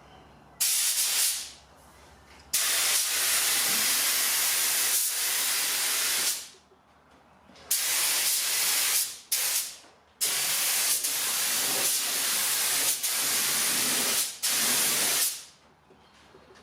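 Paint being sprayed onto car panels in five bursts of hissing spray, each starting and stopping sharply, the longest lasting about five seconds.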